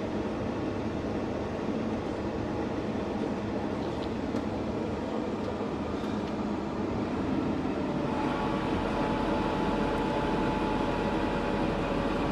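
Tractor and trailed carrot harvester running steadily: a continuous machinery drone with rattle, where a couple of faint steady whining tones join after about eight seconds.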